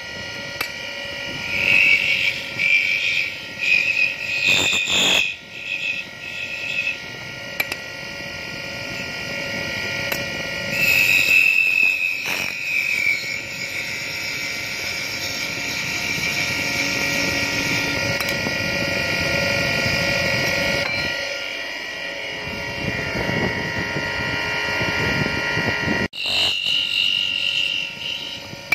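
Wood lathe running with a steady machine whine while a flat steel scraper cuts a spinning wooden spindle, the cuts coming as repeated high-pitched squealing stretches.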